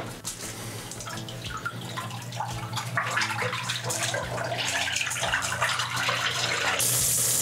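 Zoeller M63 submersible sump pump on a test run in its pit: a steady motor hum with water churning and gurgling as it pumps, growing louder from about three seconds in. Near the end a louder, steady rush of water sets in suddenly.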